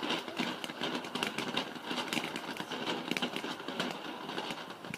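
Small ground firework crackling, a dense, rapid run of many small pops that cuts off sharply near the end.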